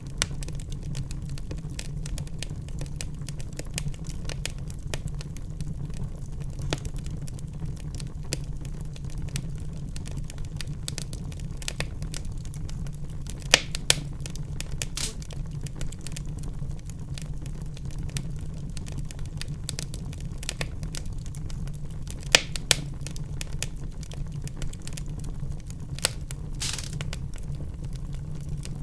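Wood fire burning in a fireplace: a steady low rumble of flames under constant fine crackling, with a few louder sharp pops and a brief hiss near the end.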